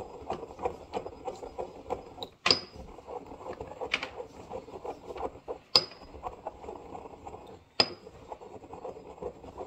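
Pestle grinding spices in a ceramic mortar: a steady gritty scraping, broken four times by a sharp clink of the pestle against the bowl that rings briefly.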